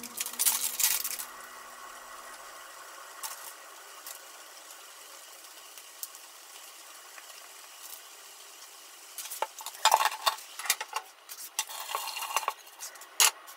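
Kitchen handling sounds: ham slices and packaging handled and pressed into small ceramic ramekins, over a steady hiss of spinach sizzling in a frying pan on the gas hob. A cluster of knocks and clatter comes from about ten seconds in, as the frying pan is lifted off the hob.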